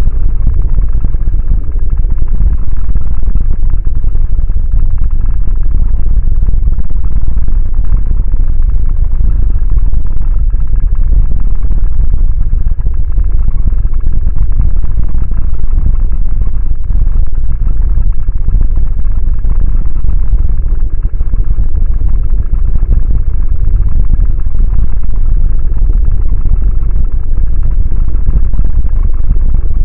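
A loud, steady low rumble sound effect, deep and muffled, with no breaks or changes.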